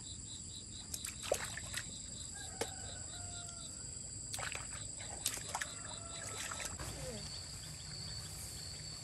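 Hands splashing and knocking in shallow muddy water while snails are picked out by hand, a few short sharp splashes in two clusters, over a steady high insect-like buzz with a pulsing chirp.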